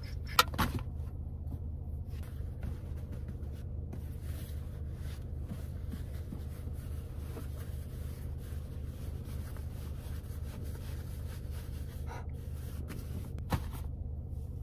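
Clothes and shoes being handled inside a car's cabin: faint rustling and scraping of fabric over a steady low hum, with two sharp knocks about half a second in and another click or two near the end.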